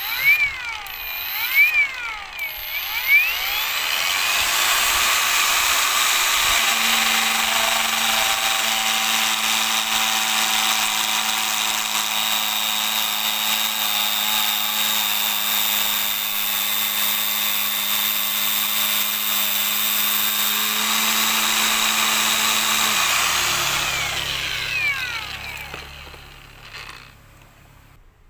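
Angle grinder fitted with a single sandpaper disc, run up with a few short bursts, then running steadily with a whine as it cuts through a small wooden branch. Near the end it is switched off and winds down.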